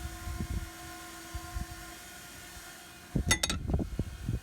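DoAll surface grinder spindle motor running with a steady hum, the grinding wheel now turning the correct direction after two supply wires were swapped. A brief burst of sharp metallic clicks comes about three seconds in.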